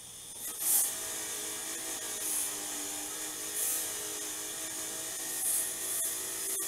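Wire wheel running steadily, with several short, harsher scratching surges as a rusty front-fork part is pressed against it to knock off the rust and grime.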